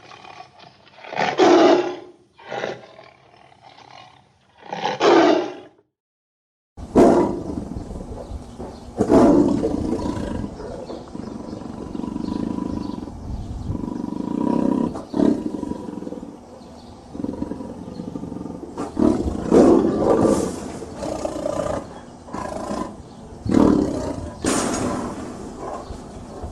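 Tiger roaring and growling in a series of calls. Three short calls come in the first six seconds, then about a second of silence, then a second recording with steady background noise and more calls close together.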